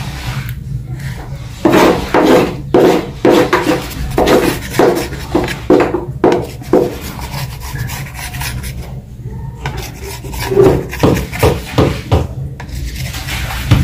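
Kitchen knife cutting through a tray of semolina barfi, the blade drawn through it against the tray in repeated short strokes, about two a second, in two runs with a pause between.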